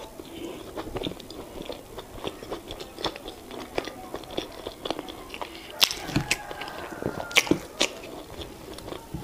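Close-miked chewing of boiled yam and eggplant sauce, a run of small wet mouth clicks, with several sharper, louder clicks between about six and eight seconds in.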